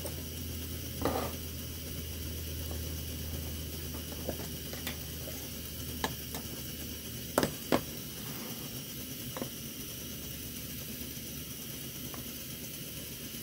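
Coleman 400 white-gas camp stove burning with a steady hiss, while a metal spoon clinks against a coffee can a few times as grounds are scooped out. There are two sharp clinks in quick succession about seven and a half seconds in.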